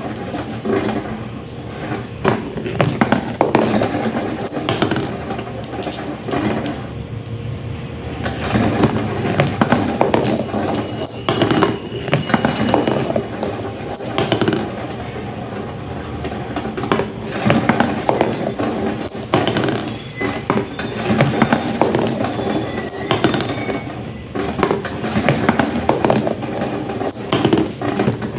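Marbles rolling down a homemade marble run: a continuous rolling rumble with many sharp clicks and clacks as they knock against the track and each other, and a few brief ringing tones.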